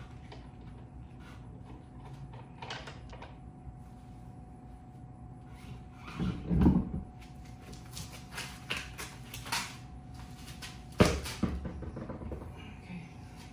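Metal clicks and clunks as the lug nuts are spun off a Ford Bronco's tailgate-mounted spare tire by hand and the tire is worked off its carrier, with a louder clatter about six seconds in and a sharp, loud thump about eleven seconds in.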